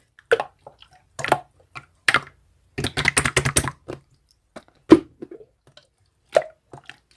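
Scattered sharp taps and clicks, with a quick run of taps about three seconds in and one louder knock about five seconds in.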